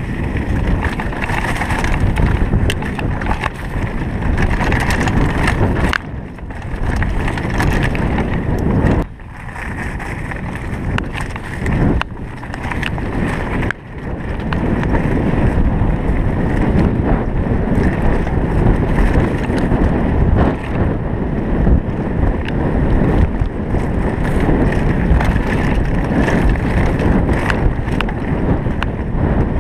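Wind rushing over the camera's microphone as a mountain bike rides fast down a dirt singletrack, with tyre rumble and frequent knocks and rattles from the bike over bumps, easing briefly a few times.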